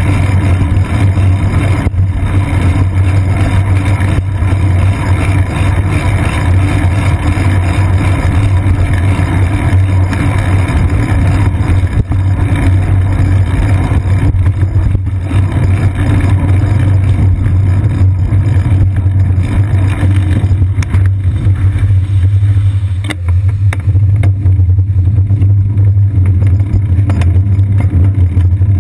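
Steady low rumble of road vibration and wind picked up by a seat-post-mounted action camera on a bicycle riding over wet city streets, with a hiss above it that thins out about three-quarters of the way through.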